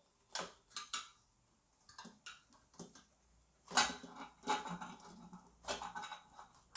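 Stainless-steel pressure cooker lid being twisted loose and worked off the pot after the steam has been released: a string of sharp metal clicks, then louder scraping clatters of lid against rim about four seconds in and again near the end.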